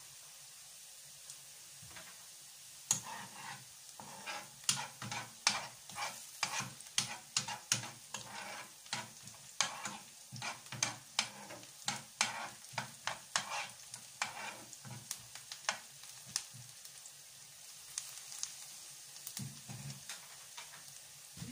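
Hand food preparation at a kitchen counter: a run of short, quick scraping strokes, a few a second. They begin about three seconds in and thin out to a few scattered strokes after about sixteen seconds.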